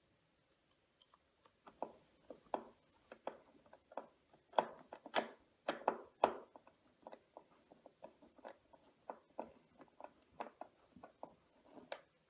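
Irregular clicks and taps of a screwdriver and hard plastic as screws are driven back into a Hoover vacuum cleaner's housing during reassembly.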